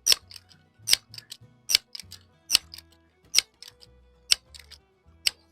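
Crosman 1322 multi-pump air carbine being pumped: a sharp metallic clack about every 0.8 to 0.9 s, six or seven strokes, each followed by smaller clicks of the lever, as the gun is charged for a shot.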